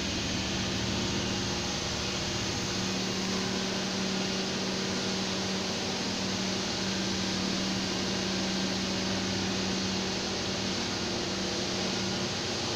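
Steady hum and fan-like whir of running equipment in an electrical panel room, with a constant low tone under an even rushing noise.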